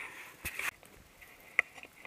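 Footsteps crunching through dry grass, with rustling clothing and gear: a longer scratchy crunch about half a second in and a sharp click about one and a half seconds in.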